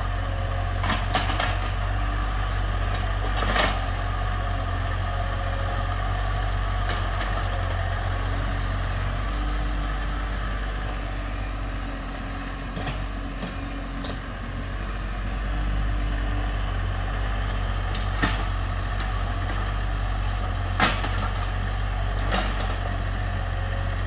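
IHI IS-30GX mini excavator's diesel engine running steadily while it digs, with a few short sharp knocks from the working machine.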